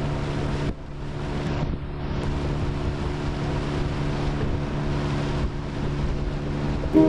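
Boat motor running steadily while the boat is under way, with wind buffeting the microphone and water noise.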